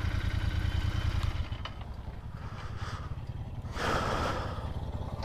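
Royal Enfield GT650 parallel-twin engine running at low speed, with a steady low exhaust pulse. It drops away about a second and a half in as the throttle closes and the motorcycle slows. A brief rush of noise comes about four seconds in.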